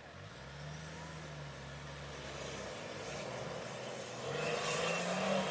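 Off-road 4x4's engine pulling under load on a climb, its pitch rising and the sound getting louder about four seconds in as it revs harder.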